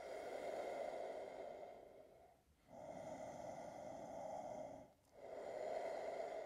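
A person breathing slowly and audibly while holding a yoga pose: three long breaths of about two seconds each, with short pauses between.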